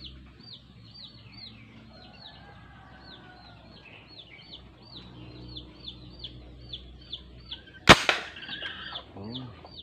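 A homemade M24-style PVC gas gun fires a single sharp shot about eight seconds in. A bird calls over and over throughout in short, high, falling notes.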